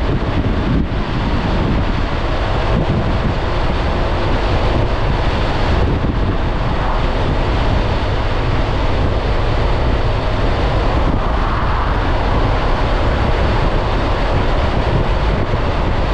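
Steady wind buffeting the microphone at riding speed, with the Honda ADV 350 scooter's single-cylinder engine running underneath.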